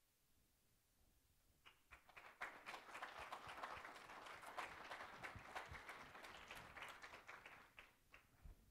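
Audience applauding: the clapping starts about two seconds in, builds quickly, holds, then thins out to scattered claps near the end.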